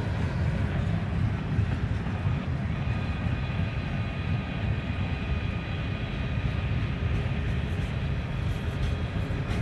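Freight cars of a passing train rolling by at a steady speed: a continuous rumble of steel wheels on the rails, with a faint thin whine joining in a couple of seconds in.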